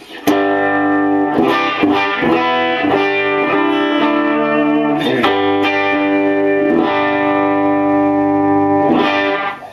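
Electric guitar played through a freshly recapped 1965 Fender Deluxe Reverb tube amp: a series of strummed chords, each left to ring, stopping abruptly near the end.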